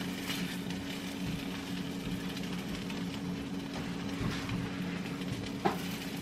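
Eggs frying in a nonstick skillet, a faint sizzle with a silicone spatula working in the pan and a couple of light taps in the second half, over a steady low hum.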